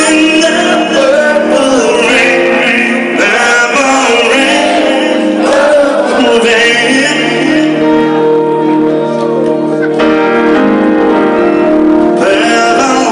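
Live band playing: a male lead singer with backing singers over electric guitar and sustained, held chords, loud throughout.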